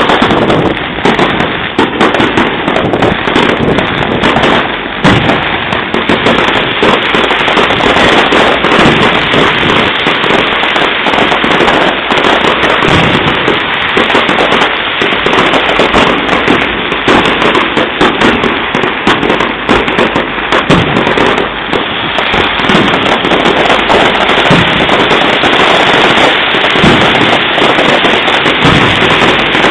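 Fireworks exploding in a dense, continuous barrage: many bangs and crackles overlapping with no let-up.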